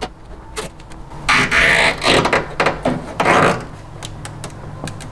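Nylon zip tie ratcheting as it is pulled tight through its head, in several short, rasping pulls.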